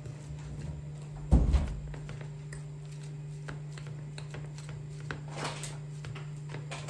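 A fork mashing crumbly white cheese with chopped parsley on a ceramic plate: soft scrapes and light taps of the fork against the plate, with one dull thump about a second and a half in. A steady low hum runs underneath.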